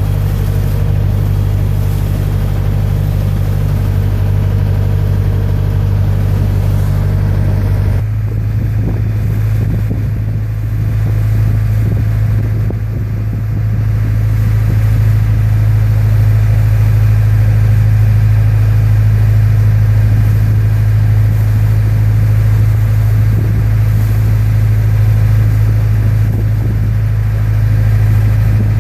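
The engine of a small ferry boat running steadily under way, a deep continuous drone. Its note changes about eight seconds in and gets a little louder from about fourteen seconds.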